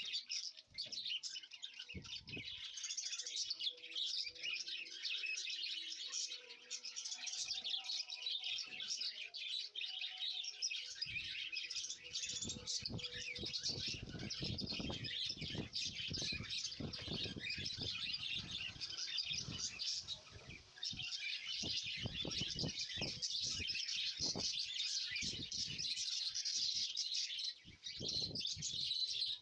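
A flock of small birds chirping and twittering continuously. From about a third of the way in, dull low knocks repeat irregularly underneath.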